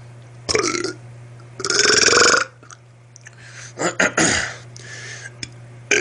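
A man belching on command, a series of deep, voiced burps. There is a short one about half a second in, a longer and loudest one around two seconds, and a couple of shorter ones near four seconds. A steady low hum runs underneath.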